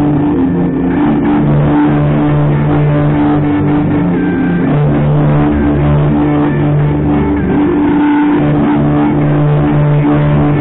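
Background music led by guitar, playing at a steady, loud level.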